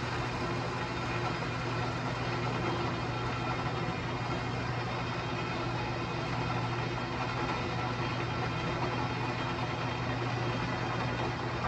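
Power saw running steadily through a cut, a constant motor hum with a dense mechanical whine over it.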